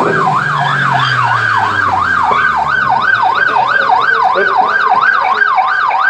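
Police car siren on a fast yelp, its pitch sweeping up and down about three times a second.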